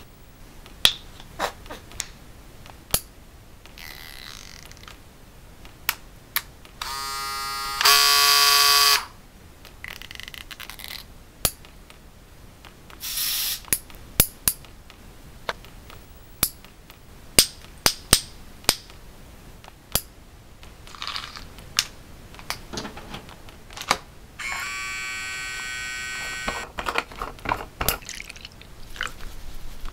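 Nail clippers snipping fingernails: scattered sharp clicks. Two spells of a harsh buzzing tone cut in, about seven seconds in, stepping louder after a second, and again for about two seconds near 25 seconds.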